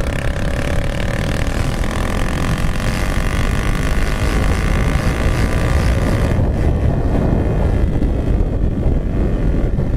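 Motorcycle running with only the bare exhaust pipe, no silencer, accelerating hard with a loud, steady engine note. After about six seconds the higher engine tones drop away and a low rumble continues.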